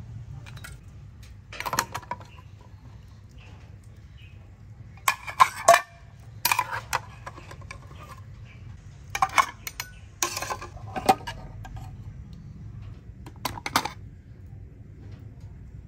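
A metal spoon clinking and scraping against metal mess tins as boiled eggs are scooped out and set down, in several short bursts of clinks.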